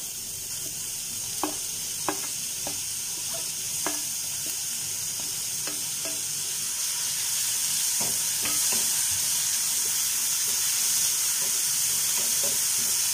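Chopped onions sizzling in hot oil in a frying pan, a steady frying hiss that grows a little louder about halfway through. A wooden spatula taps and scrapes against the steel plate and the pan a dozen or so times as the onions are pushed in and stirred.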